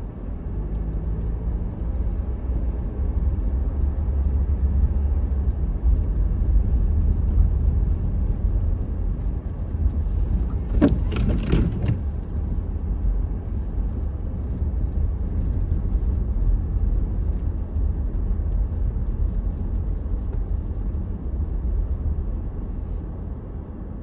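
Steady low rumble of a car driving slowly on a snow-covered road, heard from inside the cabin. A brief higher-pitched sound stands out about eleven seconds in.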